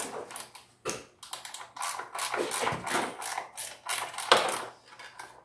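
Ratchet wrench clicking in quick, irregular strokes with metallic rattles while loosening the bolts of a Briggs and Stratton engine's top cover, with one sharper clack about four seconds in.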